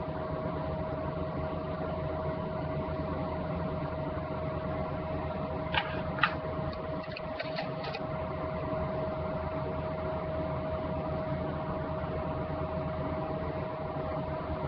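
A steady hum with a constant tone over hiss, like a fan or appliance running. About six seconds in come two sharp clicks, then a few fainter ones over the next two seconds.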